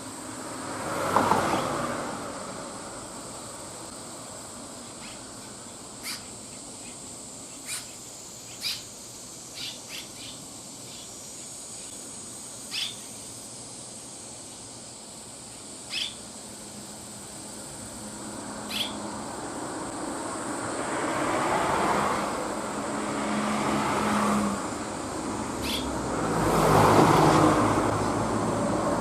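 Road vehicles passing: one goes by about a second in, then a longer, louder run of passing traffic with a low engine hum builds from about two-thirds of the way through. In the quieter middle stretch, about eight single short, sharp bird chirps ring out a second or two apart.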